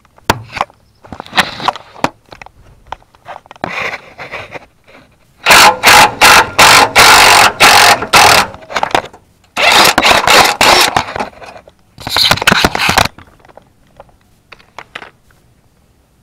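Ryobi 1/2-inch cordless impact wrench hammering bolts loose under a truck. Short clatters and clicks come first, then three loud hammering bursts, the first and longest lasting about four seconds.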